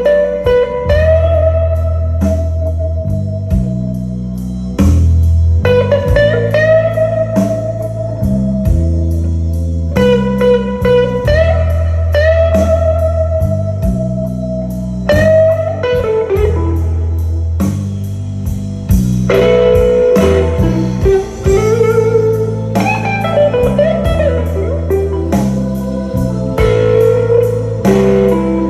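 Instrumental intro of a blues song played back as a sound test: a bending guitar lead over a repeating bass line and a steady beat, with no singing yet.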